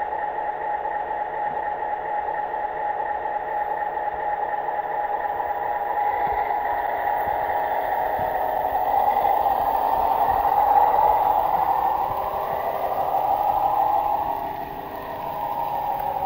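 Märklin HO-scale PA-1 model locomotive running with its freight cars: a steady whir and rattle of motor and wheels on the track, getting louder about ten seconds in as it passes close, then dropping away near the end.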